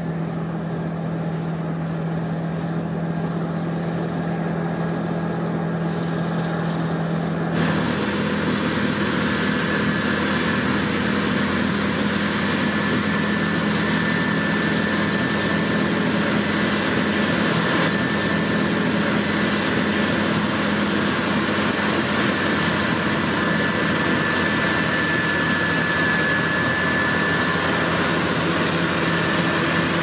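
Claas Lexion combine harvester running steadily while cutting wheat: an even engine and machinery drone with a thin high whine over it. The pitch and mix change abruptly about seven seconds in, then hold steady.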